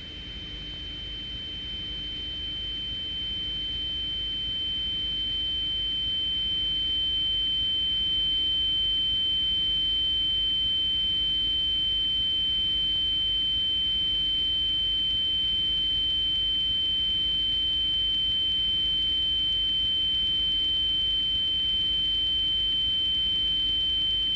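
A steady, high-pitched electronic tone, one pure pitch, that swells louder over the first several seconds and then holds level, over a faint low hum and hiss.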